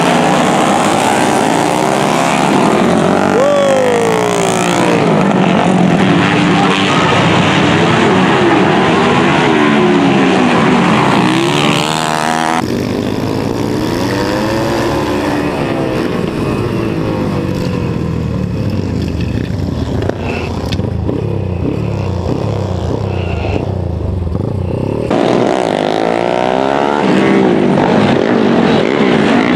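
Flat-track racing motorcycle engines revving hard, their pitch rising and falling as the bikes accelerate and brake through the corners. About midway the sound changes abruptly to a single bike's engine heard up close, climbing and dropping in pitch, then changes again near the end.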